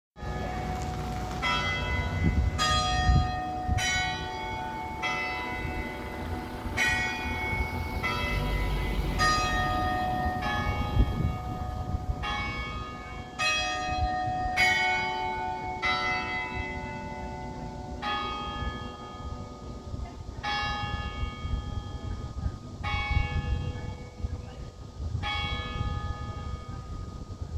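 St. Philip's Church bells ringing: a run of strikes at differing pitches, each bell ringing on into the next. The strikes come about once a second, then spread out to about one every two seconds in the last third.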